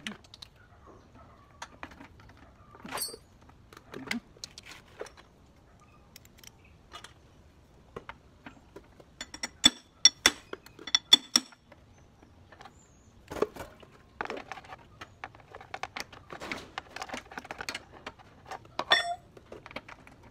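Hand tools working the fairing bolts on a motorcycle: scattered clicks and handling knocks, with a run of sharp, ringing metal clinks from a socket wrench about ten seconds in, and busier rattling and scraping later on.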